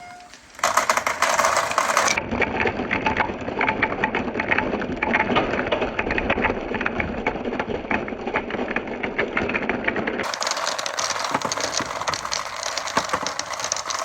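Many marbles rolling down a marble run at once, a dense continuous rattle of small clicks and clacks as the balls knock against each other and the track, starting about half a second in.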